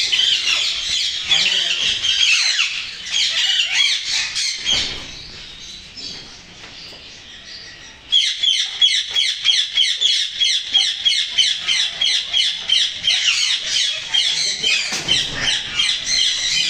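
Many small cage birds chirping and chattering together in dense, rapid, high calls. The chorus thins and fades for a few seconds past the middle, then comes back loud all at once about eight seconds in as quick, regular chirps.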